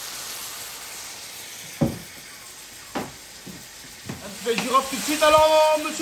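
Pieces of venison browning in hot oil in a pot: a steady sizzle, with two short knocks in the first half. A voice comes in over the sizzle near the end.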